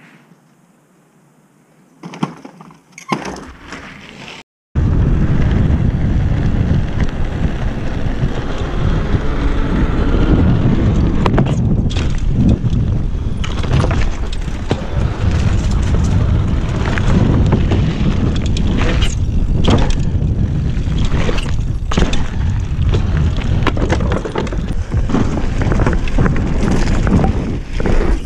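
Bicycle being ridden over dirt, paving and wooden ramps, heard from a camera on the handlebars: wind buffets the microphone and the bike rattles and knocks over the bumps. The first few seconds are quiet, with a few knocks, before the riding noise starts abruptly.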